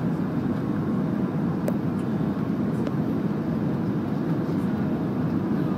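Airbus A319 cabin noise on final approach: a steady low roar of the engines and air rushing past the fuselage and wing. A few faint ticks or rattles come about two and three seconds in.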